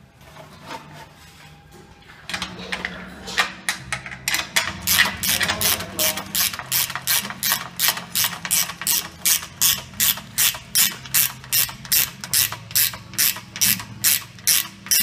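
Ratchet wrench tightening a clamp bolt on a sawmill's steel tube collar, clicking steadily at about three clicks a second.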